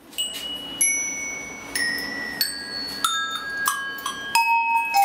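A row of hand-made copper-coated iron cowbells of graded sizes is struck by hand one after another. There are about eight strikes, each bell ringing on, and each note is lower than the last, like a descending scale.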